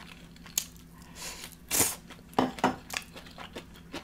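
Close-miked mouth sounds of eating shredded green mango salad: a slurp about a second in, then a couple of wet chews and small mouth clicks.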